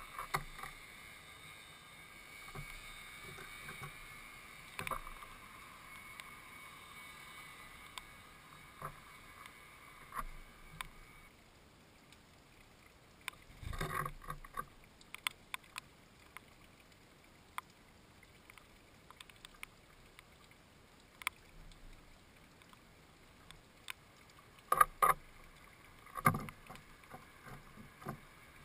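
Sparrows moving about a wooden bird feeder: scattered knocks and taps as they land on the wood and peck at a hanging suet ball in its net, with a quick run of knocks about halfway through and again near the end.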